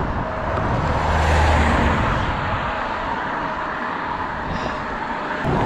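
Road traffic noise heard from a bicycle at the roadside: a steady rush of vehicle and road noise, with a passing vehicle's low engine hum loudest about one to two seconds in.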